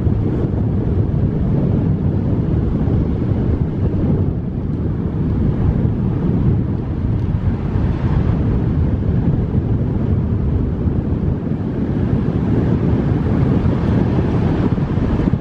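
Steady low rumble of wind on the microphone mixed with the road noise of a car driving.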